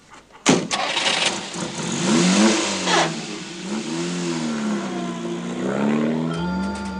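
A sharp bang about half a second in, then a car engine revving as the car pulls away, its pitch rising and falling several times. Music comes in near the end.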